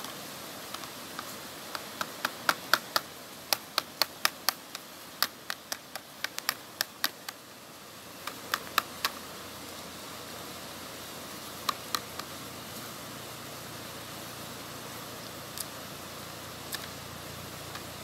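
Kitchen knife smacking down on garlic cloves and shallots on a plastic plate to crush them: a quick run of sharp knocks, about three a second, for several seconds, then a few scattered knocks.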